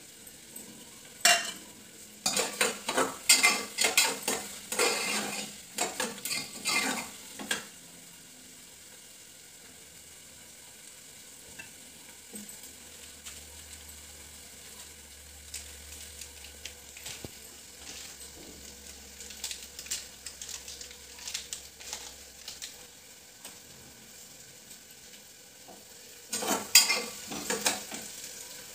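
A metal spoon stirring and scraping in a pan of food frying on a gas stove, with a sizzle. The clinks and scrapes come in a busy run for several seconds early on and again near the end, with only the faint sizzle between.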